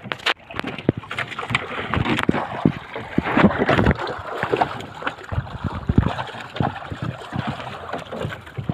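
Water splashing and sloshing as a large squid thrashes at the surface and is gaffed and hauled up against the side of a wooden outrigger boat, with many irregular knocks and thuds.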